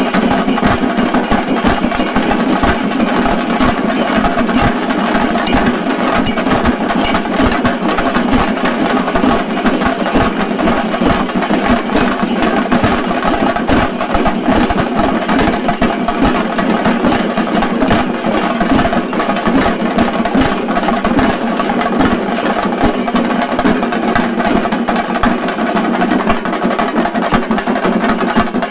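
Chenda drums of a shinkari melam troupe beaten in a fast, dense, unbroken stream of strokes.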